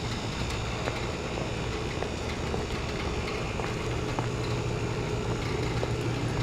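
A steady low mechanical hum, like an engine running at idle, with a few light scattered clicks of walking.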